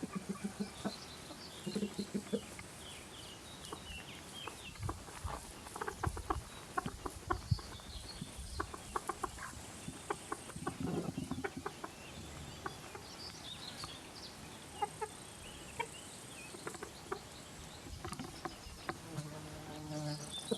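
Free-range chickens, including a Silkie rooster, clucking in short low calls, with a longer call about 11 seconds in and another near the end. A run of quick short taps fills the middle, and faint high chirps and a light hiss sit behind.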